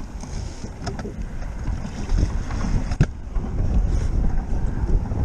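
Strong wind buffeting the microphone in gusts on a kayak on choppy water, with a faint click about a second in and a sharp knock about three seconds in.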